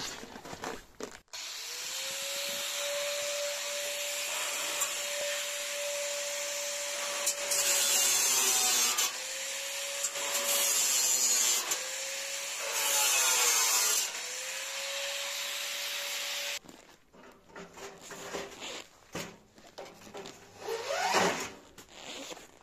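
Hand-held electric power tool running with a steady whine, dropping in pitch and turning harsh and louder three times as it cuts into the metal bed frame, then switched off about 16 seconds in. Scattered knocks follow, and a brief rising whine as the tool is run up again near the end.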